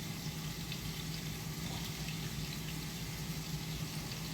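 Ground beef sizzling and crackling steadily in a frying pan as it browns, over a steady low hum.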